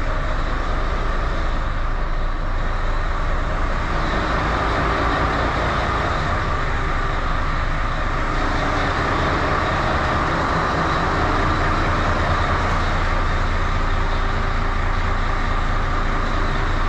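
Mercedes-Benz Actros truck's diesel engine running steadily as the truck moves forward at walking pace, heard from inside the cab.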